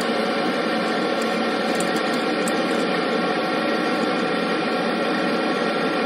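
Steady machinery noise: a dense, even whir with a faint steady tone running through it, unchanging throughout.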